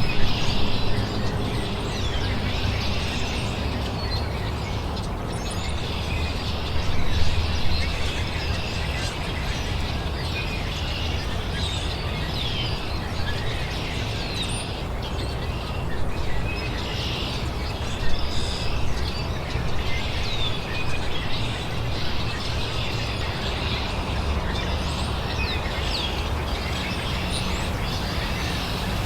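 Birds chirping and calling in short, scattered notes, over a steady low background rumble.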